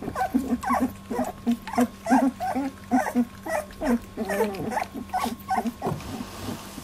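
Labradoodle puppies making a quick run of short, pitched calls, a few a second, while feeding at a milk dish; the calls stop about six seconds in.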